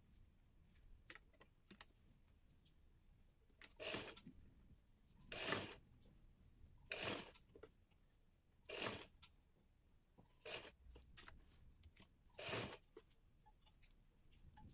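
Singer sewing machine run in six short bursts of a few stitches each, about every one and a half to two seconds, as fabric pleats are stitched down one at a time.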